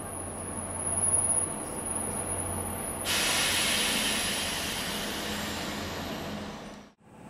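Two ÖBB electric locomotives heading a passenger train: a steady electrical hum with high whines, then about three seconds in a sudden loud hiss of released compressed air that slowly fades. The sound cuts off abruptly near the end.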